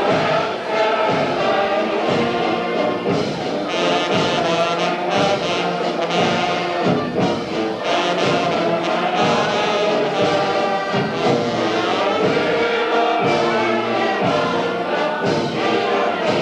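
A wind band playing a piece at a steady level, with brass prominent.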